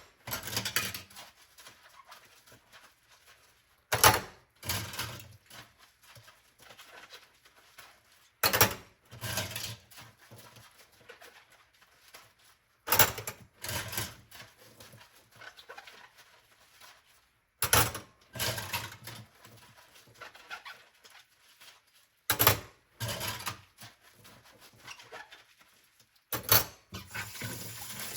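Dishes clinking as they are handled and set down during hand-washing: a sharp clink about every four to five seconds, each followed by a little softer clattering.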